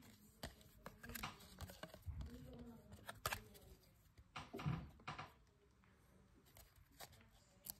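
Stiff chromium-stock baseball cards being flipped through by hand, sliding and snapping against each other in quiet, scattered clicks and rustles.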